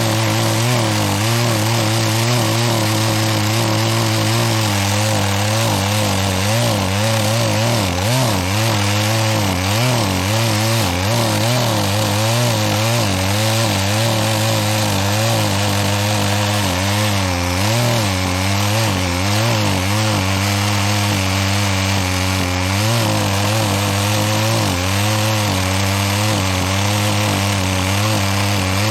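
Gasoline chainsaw running at full throttle and cutting into a pine trunk, its engine pitch wavering as it bogs under load and picks up again. The chain is dull and cuts slowly.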